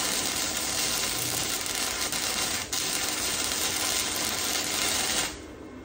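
Electric arc welder welding a metal brace onto a motorcycle's tubular seat loop: a steady crackling hiss of the arc that cuts off about five seconds in.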